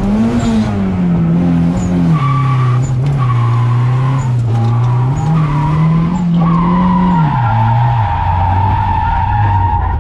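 Nissan 240SX's turbocharged SR20DET four-cylinder engine rising and falling in revs while the tyres squeal in a drift. The squeal comes in short spells, then holds steadily for the last few seconds.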